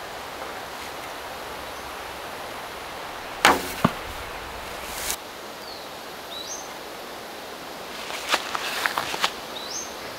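A hackberry Mollegabet self bow shooting: the string is released with one sharp, loud snap about three and a half seconds in, and a second crack follows a moment later. Near the end come a run of small clicks and taps as the next arrow is handled and nocked on the bow, with a few short high chirps.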